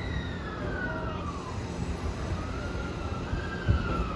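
E257 series electric train pulling away, its traction inverter whining. The whine slides down in pitch over the first second and a half, rises a little and falls again, over a low rumble of the moving train.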